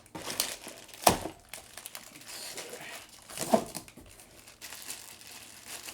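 Packing material crinkling and rustling as a shipping box is opened and unpacked by hand, with a sharp knock about a second in and another around three and a half seconds in.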